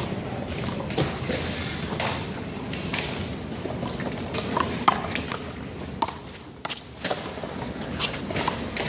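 A one-wall handball rally: the rubber ball smacked by hand and hitting the wall and court in sharp slaps, roughly one a second, with a few short squeaks in between.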